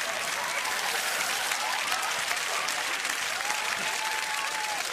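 Studio audience applauding steadily, a dense crackle of many hands clapping, with a drawn-out voice faintly over it near the end.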